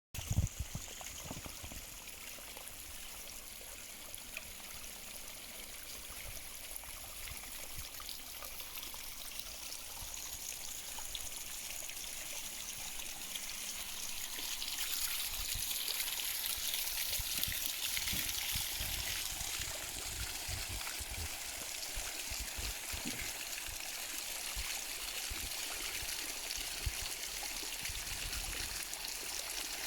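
A stream of water running and trickling in a steady rush that grows somewhat louder about halfway through.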